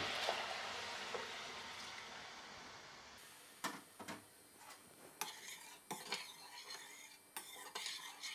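Sweet wine poured into a hot stainless-steel pan of octopus pieces, sizzling and hissing, the hiss dying away over about three seconds. Then a fork stirs the braise, knocking and scraping against the pan in a run of sharp clicks.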